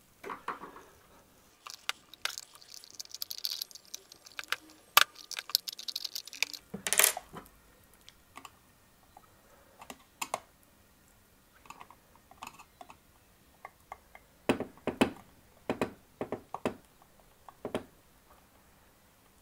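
Screwdriver prying and tapping at the snap fits of a Proxxon TBS 12 drill press head housing, working it open: a string of irregular small clicks and taps, with a scraping stretch about three to six seconds in.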